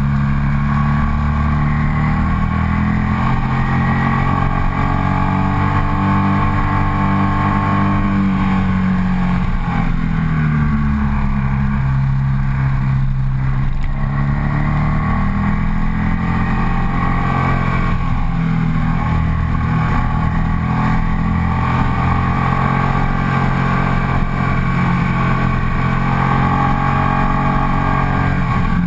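Ducati SportClassic Sport 1000's air-cooled 992 cc L-twin engine pulling uphill, heard close up from the rider's position. Its revs rise and fall repeatedly as the throttle is opened and closed.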